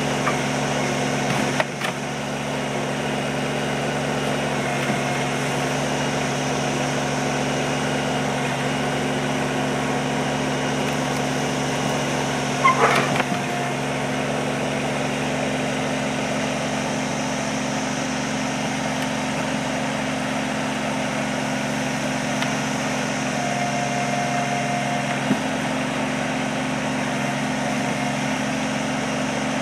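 Kubota compact tractor's diesel engine running steadily while its backhoe works, with a brief clatter of wooden boards about halfway through and a smaller knock near the start.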